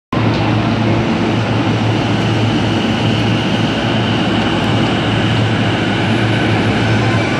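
Steady hum and noise of an electric commuter train standing at a station platform with its doors open, a constant low drone running under the platform noise.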